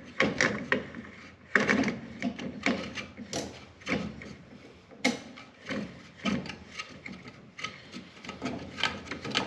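Irregular clicks, knocks and scraping of plastic and metal parts being handled while a new dryer blower wheel is threaded onto its motor shaft.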